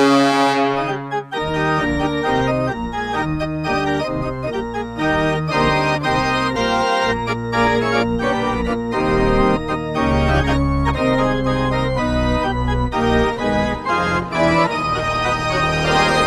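Arena organ playing a quick run of notes, following a goal horn whose sound dies away in the first second or so.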